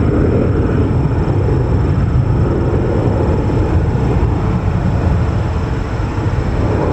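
Boeing 737-500's twin CFM56-3 turbofan engines at climb power just after takeoff, heard from the ground as a steady rumble with most of its weight low.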